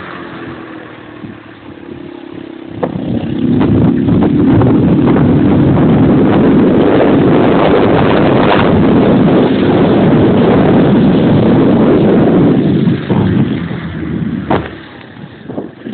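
Kinroad off-road moped with a Honda SS50-type four-stroke single-cylinder engine, ridden along: the engine note falls and runs quieter for the first few seconds, then picks up about three seconds in and runs loud and steady for about ten seconds before easing off near the end.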